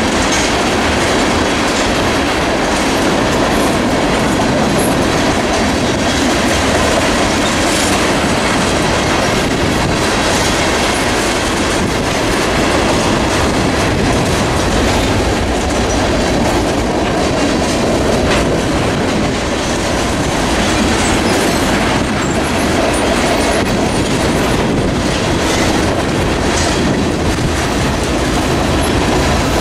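Freight cars of a passing train rolling by with a steady rumble, wheels clicking over rail joints, and a thin high wheel squeal in the last few seconds.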